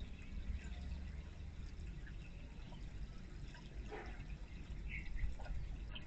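Water from a small tiered fountain bird bath pouring from its top bowl into the basin below, a steady trickling splash.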